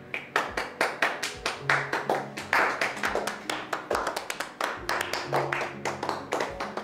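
A small group of people clapping their hands in polite applause: a quick, uneven patter of claps over quiet background music.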